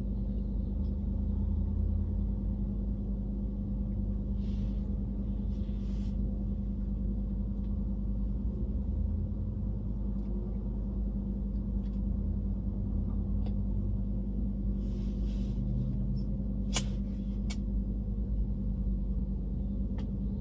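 Steady low rumble and hum of a car idling, heard from inside the cabin, with a few sharp clicks late on.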